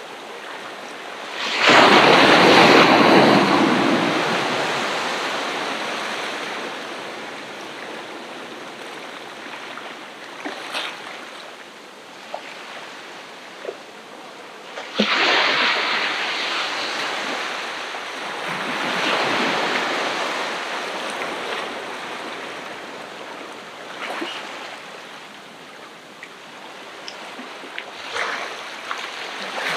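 Ocean waves breaking on the shore, each surge swelling up and then fading away into a hiss. The biggest break comes a couple of seconds in and another about halfway through, with smaller ones after.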